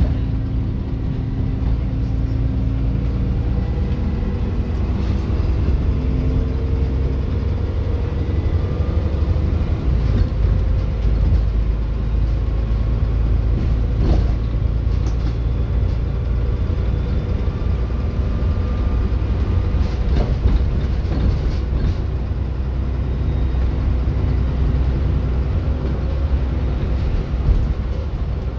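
Dennis Enviro400 double-decker bus running, a steady low engine rumble with a faint whine that rises in pitch a few seconds in. A few knocks and rattles come through, mostly around the middle.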